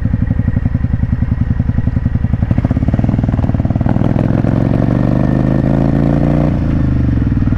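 Motorcycle engine running under way, its revs climbing steadily for a few seconds as the bike accelerates, then falling back sharply near the end.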